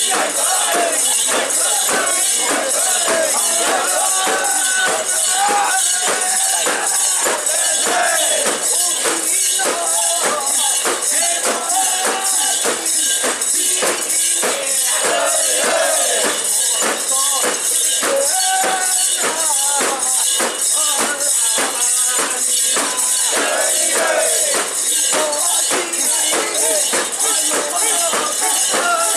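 Metal rings and fittings of a portable Shinto shrine (mikoshi) jangling in a quick, even rhythm as it is carried, with the bearers' voices chanting underneath.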